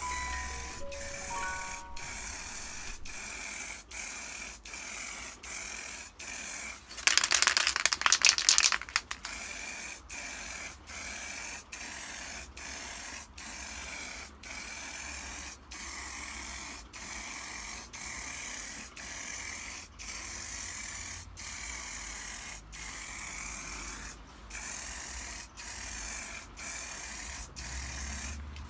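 Aerosol spray can of alkyd paint hissing in a long run of short bursts, broken by brief regular gaps. About seven seconds in there is a louder, denser stretch of about two seconds.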